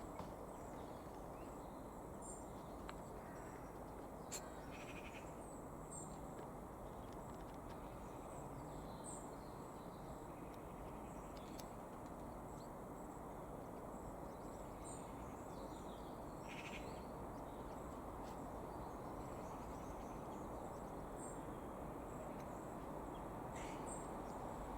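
Steady low background noise with faint, short, high bird chirps every few seconds and an occasional faint click.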